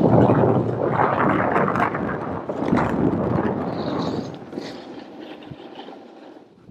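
Snowboard sliding and carving over snow, a steady scraping hiss with wind on the microphone, louder for the first few seconds and then fading away.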